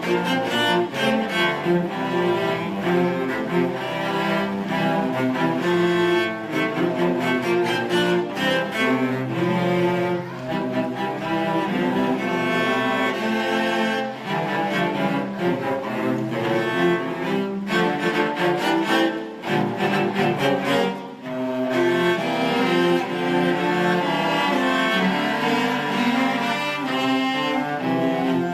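A children's orchestra playing, with cellos and other bowed strings carrying the melody in steady, moving notes; there is a brief softer moment about two-thirds of the way through.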